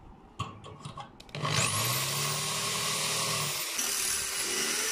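An electric hand drill with a few handling clicks, then the drill spins up about a second and a half in and runs steadily, boring a bolt hole through the steel of the cot's leg support.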